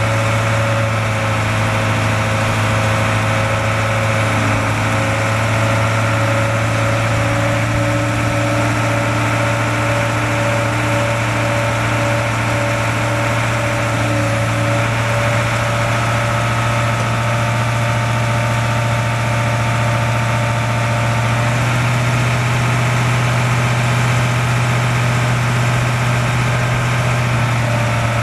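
Caterpillar 3208 V8 diesel engine running steadily to drive the digger derrick's hydraulics while the boom telescopes in, with steady higher tones over the engine's drone. The engine note steps up slightly about three-quarters of the way through.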